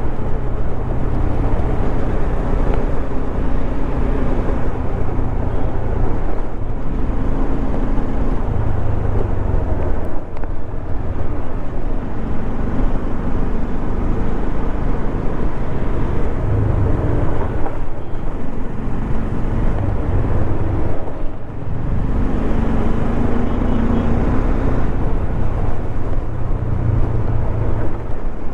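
Bajaj Dominar 400's single-cylinder engine running at road speed under a heavy rush of wind, its note rising and falling with the throttle and dipping briefly a few times.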